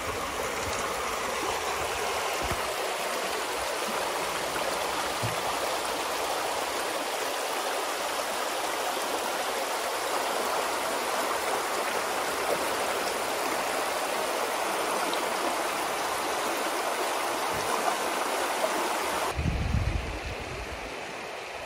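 Shallow river running over a gravel bed: a steady rush of flowing water. Near the end the rushing thins and a low rumble comes in for a couple of seconds.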